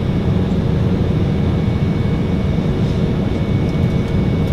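Steady engine and airflow drone inside the cabin of an Embraer 190 in flight, from its General Electric CF34-10E turbofans, with a faint high steady whine over it.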